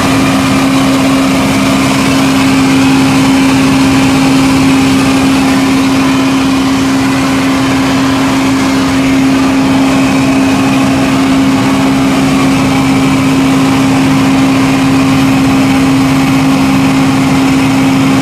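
Aircraft ground power unit's engine running at a constant speed, a loud steady hum on one unchanging pitch.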